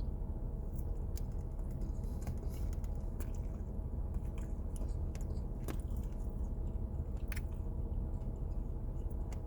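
A person chewing a mouthful of pumpkin spice cinnamon roll, with small wet mouth clicks scattered throughout over a steady low background hum.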